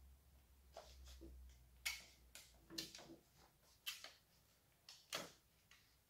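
A handful of light plastic clicks and knocks as the dust canister is twisted off a Milwaukee ROS 150 E-2 random orbital sander and the sander is handled. The loudest knock comes about five seconds in.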